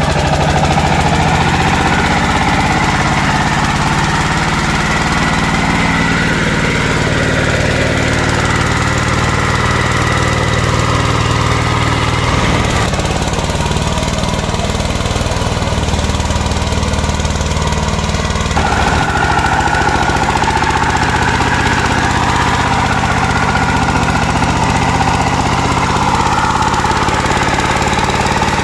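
Single-cylinder diesel engine of a công nông farm vehicle running hard under load as it pulls through deep mud: a steady, fast knocking chug. Its tone shifts abruptly twice partway through.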